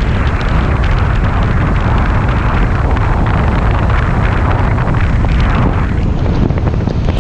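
Steady wind noise on the microphone of a camera on a moving vehicle, mixed with the vehicle's road noise, heaviest in the low end.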